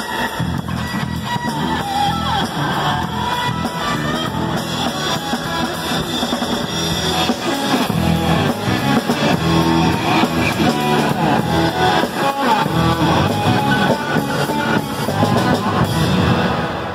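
Live instrumental rock from a drum kit with crash and ride cymbals and an electric guitar played through a small amplifier, with a steady beat. Near the end the playing stops and the sound dies away.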